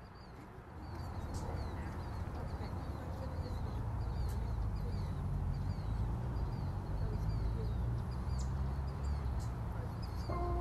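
Faint, short, high-pitched bird chirps repeating over and over above a steady low rumble of outdoor noise, which grows louder about a second in.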